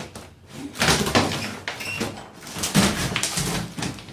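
Tiled floor and subfloor being broken up and pried loose: two bursts of heavy knocks and cracking, about a second in and again about three seconds in.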